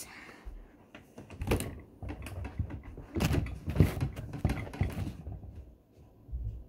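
Knocks, rustling and thumps of a person getting up from a table and moving off, with a few sharper clacks in the middle.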